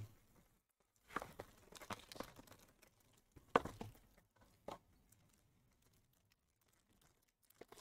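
A trading-card box and its silver foil pack being opened by hand: faint tearing and crinkling of wrapper in a few short bursts.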